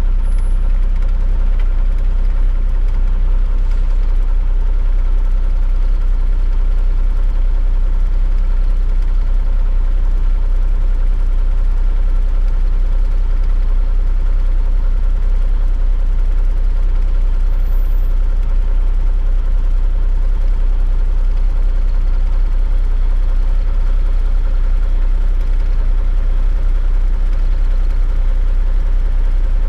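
Semi truck's diesel engine idling steadily, heard from inside the cab while the truck stands still.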